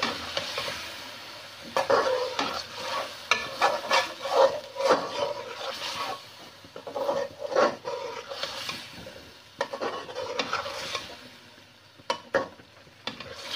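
A spoon stirring and scraping chicken and yogurt masala around a metal pot over the flame, in irregular strokes, with the masala sizzling as it is fried (bhuna) to cook off the yogurt's water. The stirring eases off near the end with a few sharp knocks.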